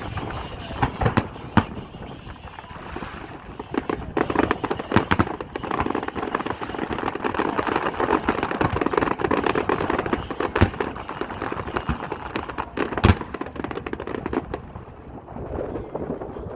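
Aerial fireworks going off: scattered sharp bangs, with a dense stretch of rapid crackling from about six to twelve seconds in.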